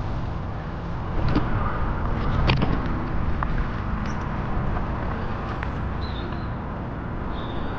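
Electric fat-tyre mountain bike riding along a tarmac path: a steady rush of rolling tyre and wind on the handlebar camera, with a few knocks as the bike goes over bumps, the loudest about two and a half seconds in.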